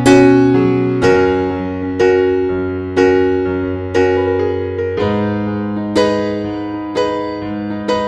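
Slow piano music: a note or chord struck about once a second, each left ringing and fading before the next.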